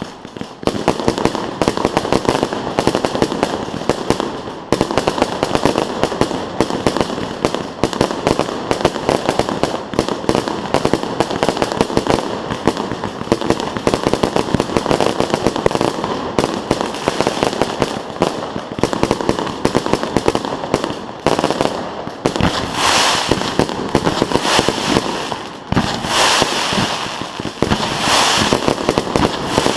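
Fireworks display: a dense, continuous barrage of bangs and crackles. Near the end come stretches of loud, hissing crackle.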